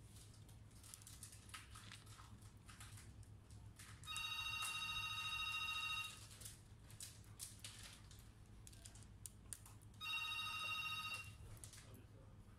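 An electronic ringing tone sounds twice, for about two seconds starting about four seconds in and briefly again about ten seconds in. Underneath, a small screwdriver clicks faintly against the screws of a laptop's keyboard frame.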